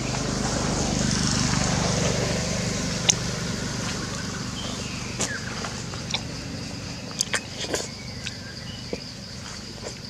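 A motor vehicle's engine passing by, loudest a second or two in, then slowly fading away. Under it runs a steady high buzz, and scattered sharp clicks come mostly in the second half.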